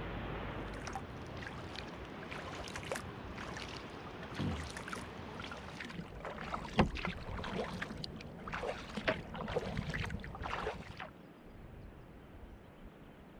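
Kayak paddling on calm water: small irregular splashes and drips as the paddle blades dip and lift, with one sharper splash about seven seconds in. The splashing stops near the end, leaving a soft steady hiss.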